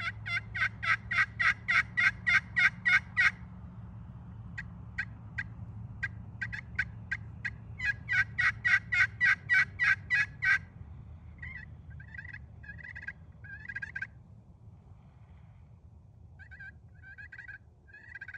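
Turkey pot call, an African Queen jasper surface over a glass sound board in a yellow cedar burl pot, played with a two-piece laminate striker. It gives a fast run of yelps, about three or four a second, then scattered clucks, a second run of yelps about halfway through, and softer, sparser notes near the end.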